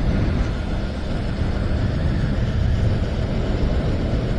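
Motorcycle riding at steady cruising speed: a steady low rumble of wind on the microphone mixed with engine and road noise.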